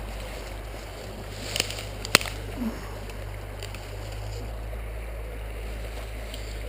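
Steady rush of a running stream, with a low rumble underneath and a few sharp clicks about two seconds in.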